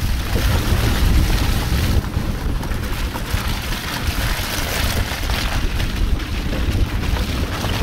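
Four-wheel dog-sled training cart rolling over a rough dirt track behind a husky team, a steady low rolling noise mixed with wind on the microphone.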